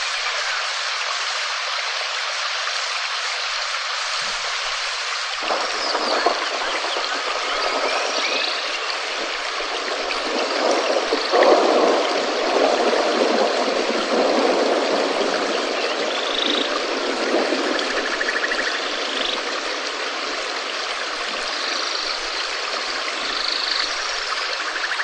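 Steady rain falling with water running and trickling, growing fuller and heavier about five seconds in. Faint high chirps come through now and then.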